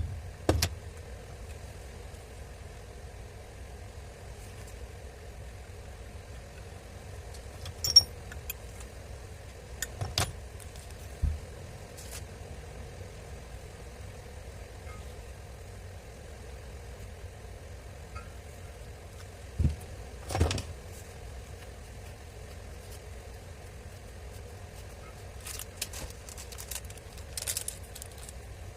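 Scattered metallic clicks, clinks and knocks from tools and grinder parts being handled on the bench, a few in a group near the middle and more near the end, over a steady low background hum.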